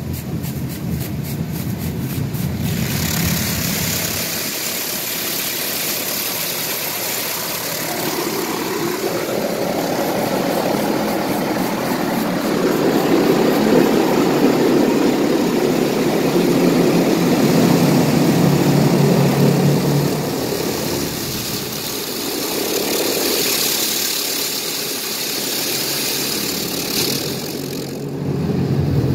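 High-pressure water jets of a touch-free automatic car wash blasting the car, heard from inside the cabin: a loud hiss and drumming of water on the glass and body that swells and fades as the spray gantry moves over the car. A lower rumble comes before the spray at the start and again near the end.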